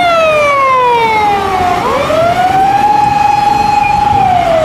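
Wail siren of a Japanese emergency response car on a run. Its pitch falls slowly, sweeps back up about two seconds in, holds, and begins to fall again near the end.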